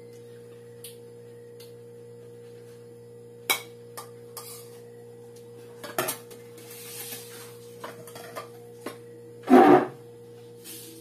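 Spoon and fork clinking and scraping against ceramic plates and a bowl, in scattered sharp strokes. A louder, longer clatter comes shortly before the end. A steady low hum runs underneath.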